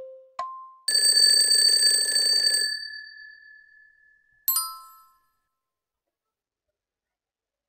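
Quiz countdown timer sound effects: one last tick, then an alarm-bell ringing for about two seconds that signals time is up, fading away, and a short bright chime about four and a half seconds in as the answer is revealed.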